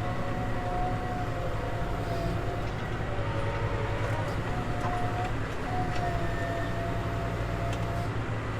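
Tractor engine running steadily, a low hum under a thin whine that wavers slightly in pitch.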